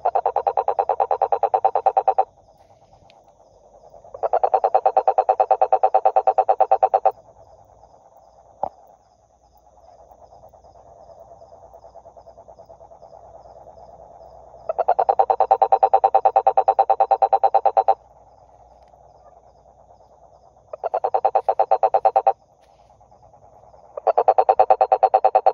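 Frog calling in repeated bouts of rapid, pulsed croaks, each bout lasting two to three seconds, with fainter calling continuing in the gaps. A single sharp click sounds about nine seconds in.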